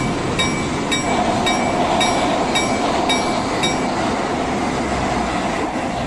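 Battery-powered toy train running on plastic track: a steady motor whine, with the wheels clicking over the track joints about twice a second until the clicking stops about four seconds in.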